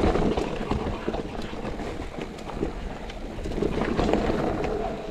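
Mountain bike riding down a dirt trail: tyres rolling over loose dirt and stones, with frequent sharp clicks and rattles from the bike, and wind buffeting the action-camera microphone, heaviest at the start.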